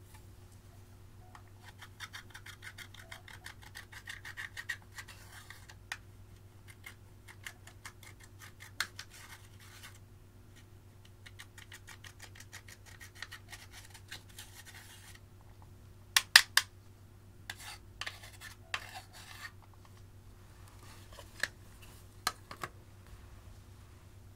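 Pressed eyeshadow being crushed and scraped out of a plastic palette with a stick tool: several runs of quick, fine scratching. About two-thirds of the way in come a few sharp clicks, the loudest sounds, followed by scattered taps.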